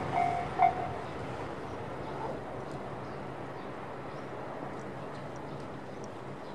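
Rumble of a passing train slowly fading away. A repeated beeping tone stops about a second in.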